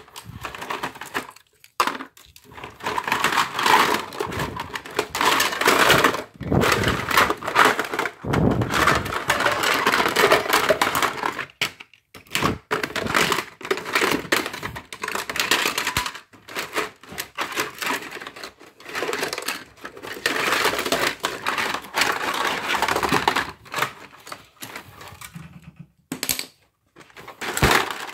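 Hard plastic pieces of broken GE door alarms clattering and crunching as they are handled, a fast irregular run of clicks and crunches broken by a few short pauses, the longest near the end.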